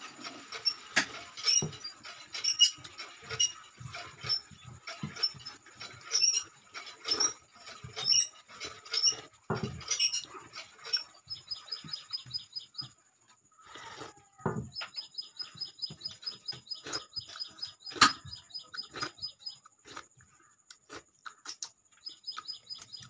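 Close-up eating sounds of a man eating dal and rice by hand from a steel plate: wet chewing and lip smacks, with fingers scraping the plate. They are densest in the first half and thin out later. From about halfway there are also fast, even runs of high chirps, several a second, that stop and start again.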